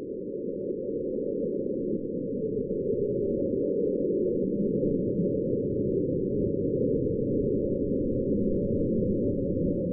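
Amateur rocket motor firing: a steady rushing noise that builds over the first few seconds as the rocket lifts off the pad, then holds loud and eases slightly near the end.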